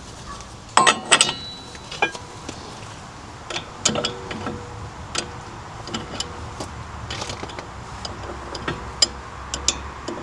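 Scattered metallic clanks and knocks of hand tools against steel on a vehicle's wheel hub, with a quick cluster of loud knocks about a second in.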